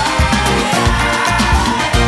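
Upbeat background music with a steady beat and brass or horn-like tones, in a Latin, salsa-like style.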